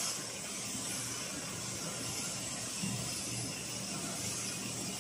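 Steady factory-floor background noise: an even hiss with a faint low hum beneath, with no distinct knocks or strikes.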